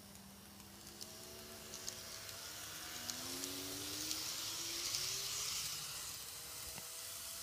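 KATO N-scale E217 series model train running past on a curve of Unitrack: a hiss of wheels on rail and a faint motor whine that rises in pitch, with light scattered clicks. The sound grows louder as the train passes closest about four to five seconds in, then fades as it runs away.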